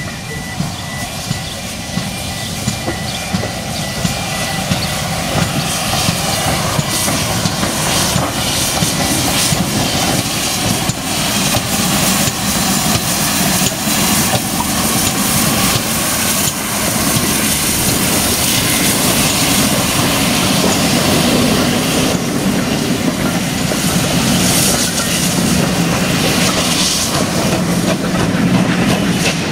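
GWR Hall class steam locomotive 'Kinlet Hall' moving past with its coaches: wheels clicking over the rail joints over a steady rumble, with hissing steam. It gets louder as the train comes closer.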